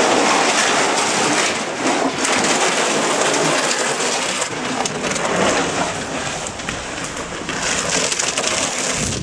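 Ice-fishing sled loaded with broken drywall being dragged over concrete and ground: a steady, rough scraping rasp.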